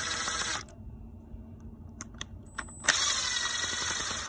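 Electric screwdriver running in two short bursts, stopping about half a second in and starting again about three seconds in, backing out a screw on a Walbro WYK carburetor to free its throttle barrel. A few light clicks of the bit and metal parts come between the runs.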